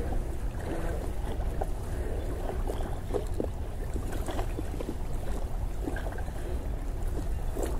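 Wind rumbling on the microphone, with small waves lapping at the lakeshore in short, scattered splashes.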